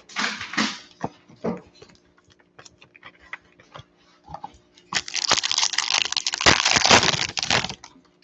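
Foil trading-card pack wrapper being crinkled and torn open: scattered crackles at first, a few faint ticks, then a dense stretch of crinkling for about three seconds near the end.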